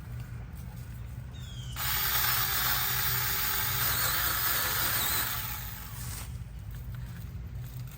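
Battery-powered pole chainsaw cutting through a palm frond: a loud, hissing cutting noise starts abruptly about two seconds in, lasts about three seconds, then fades away.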